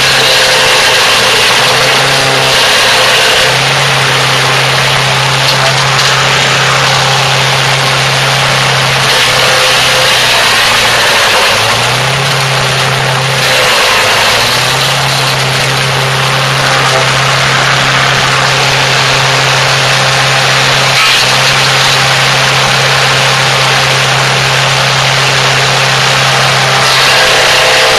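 Craftsman push mower's small single-cylinder engine running flat out at wide-open throttle while the mower mulches sticks, with a dense grinding noise over the engine. The engine note sags briefly a few times, most deeply about twelve and fourteen seconds in, as the load bites, then recovers.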